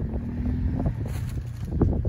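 Wind buffeting the microphone over the distant running of a quad (ATV) engine, whose steady note shows through during the first second.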